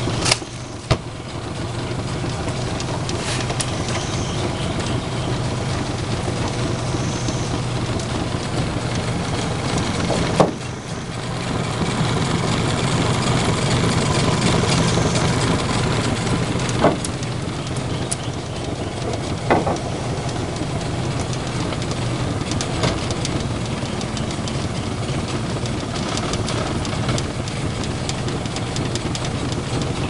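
Small outboard motor running steadily on an aluminium jon boat, a low even drone. It is broken by a few sharp knocks, one about a second in and a few more later on.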